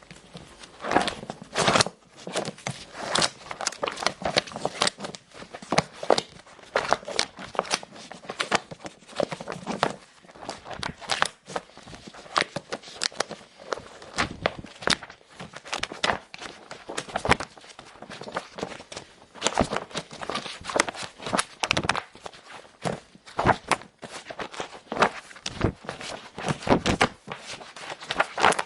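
A paper book being handled lightly: irregular soft rustles, taps and crinkles of pages and cover.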